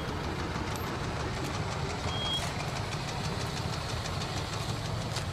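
Old car engine idling steadily with a fast, even ticking.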